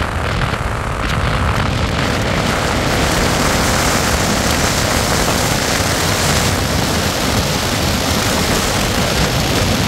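Steady, loud rushing of wind and road noise from a moving vehicle.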